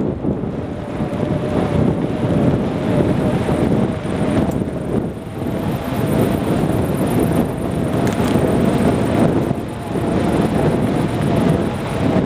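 A bike rolling fast over rough off-road ground: steady rumble and rattle of the ride, with wind buffeting the microphone and a faint steady whine.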